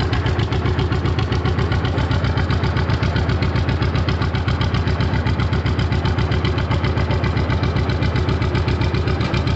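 John Deere G tractor's two-cylinder engine running steadily, its evenly spaced firing pulses giving a regular popping beat.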